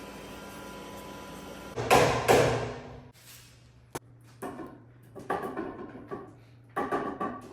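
A steady faint hum, then about two seconds in a loud clatter, followed by a run of separate knocks and rattles of hard objects being handled.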